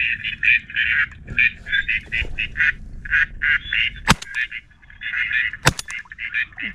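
Ducks quacking in a fast, continuous run of short calls, with two sharp knocks about four and six seconds in.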